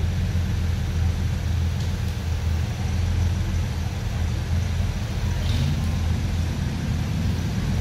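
Off-road 4x4 vehicle's engine running steadily, a constant low drone with no change in pitch.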